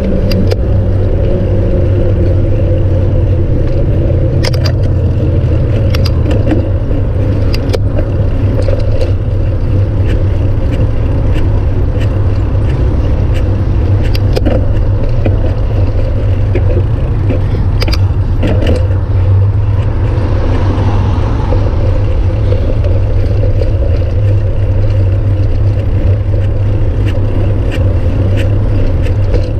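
Steady low rumble of wind and road noise picked up by a camera mounted on a bicycle riding along a freeway shoulder, with scattered short clicks and rattles from the bike. A swell of hiss comes up about twenty seconds in.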